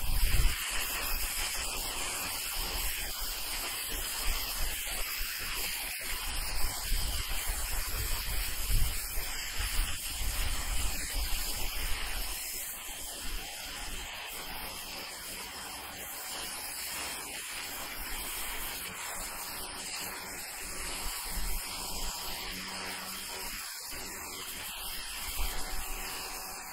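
Water jet from a Ryobi 1600 psi electric pressure washer's turbo nozzle hissing steadily against asphalt roof shingles as moss is blasted off. Irregular low rumbles sit under the hiss in the first half, and the hiss softens a little about halfway through.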